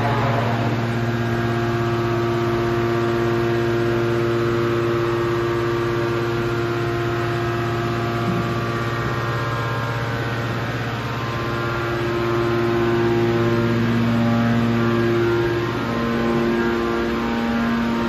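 Hydraulic metal baler line running: a steady hum of its electric motors and hydraulic pumps, a low drone with a pitched whine above it that swells and shifts slightly about two-thirds of the way through.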